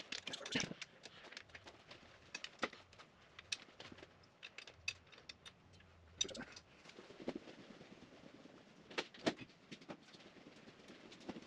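Faint, irregular clicks and knocks of hand tools being handled and set down, with a few sharper knocks about half a second in, around six seconds in and twice around nine seconds in.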